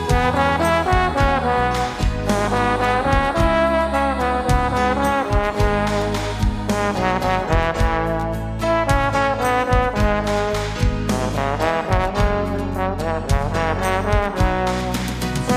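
Instrumental pop music with a brass-sounding lead melody over a steady bass line and drums.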